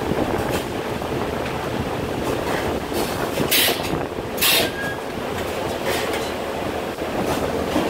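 Steady din of filter-manufacturing machinery on the factory floor. About three and a half seconds in come two short, loud hisses a second apart.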